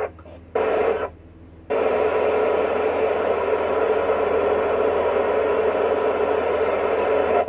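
FM amateur radio transceiver's speaker hissing with band-limited static from the ISS repeater downlink. The squelch opens briefly just under a second in, closes, then opens again at about two seconds in and stays open with steady hiss and no voice.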